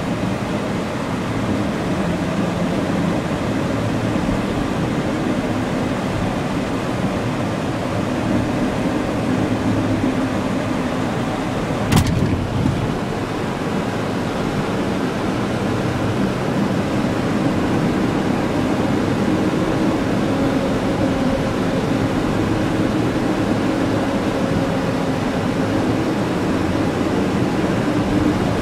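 Pickup truck driving, heard from inside the cab: steady engine and road noise with a faint engine hum that drifts a little in pitch. A single sharp click about twelve seconds in.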